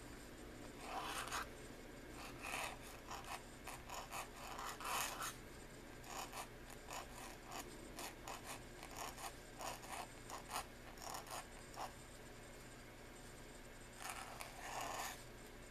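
Pointed dip-pen nib scratching on paper in a run of short strokes, then a pause and two longer strokes near the end.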